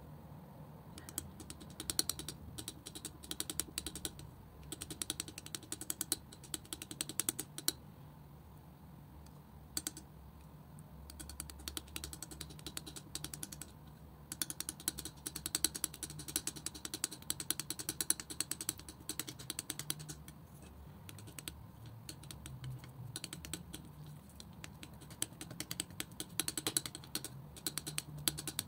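Metal palette knife working thick acrylic paint: quick runs of sticky clicking and crackling as the wet paint is pressed and smeared, in spells of a second or two with short pauses between.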